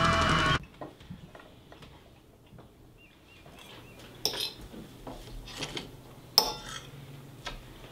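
Music cuts off about half a second in. A few sharp clinks and light scrapes of cutlery on a plate follow, the loudest about four and six seconds in.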